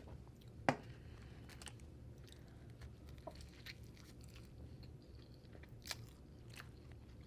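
Quiet close-miked chewing of food, with a few sharp mouth clicks and crunches scattered through, the most distinct about a second in and near the end.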